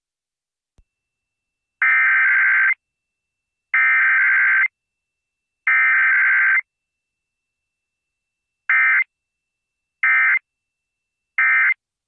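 Emergency Alert System SAME data tones for a Required Weekly Test: three warbling digital header bursts of about a second each, a second apart, then three short end-of-message bursts.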